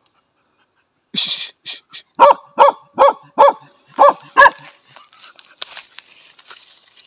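Native Vietnamese hunting dog barking at a snake hidden under an overturned wheelbarrow: six short, sharp barks in quick pairs about two seconds in, then faint rustling.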